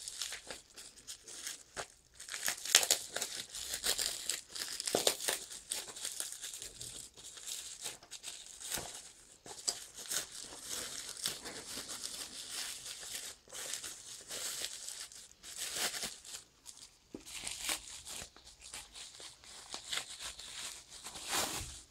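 Parcel packaging being unwrapped by hand: irregular crinkling and crumpling with bouts of tearing.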